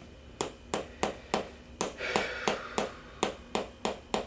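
Chiropractic adjusting instrument firing rapid, evenly spaced clicks, about three a second, as it taps along the patient's pelvis and SI joints. A brief breathy hiss comes about two seconds in.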